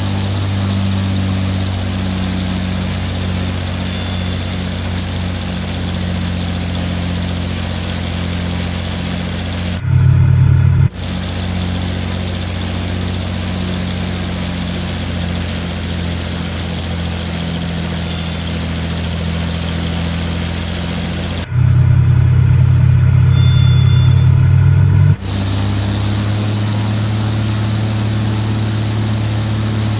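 Single-engine Cessna Stationair's piston engine and propeller running steadily. It gets louder and fuller briefly about ten seconds in, and again from about 21 to 25 seconds in.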